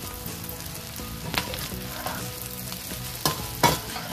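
Egg fried rice with chopped spring onions sizzling in a pan as it is stirred, with a few sharp scrapes of the utensil against the pan, the loudest about three and a half seconds in.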